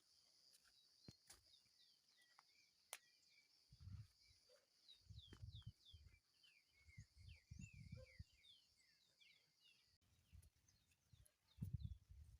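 Faint outdoor ambience: a bird calling in quick, short falling chirps over a steady high hum, with low rumbles coming and going from about four seconds in.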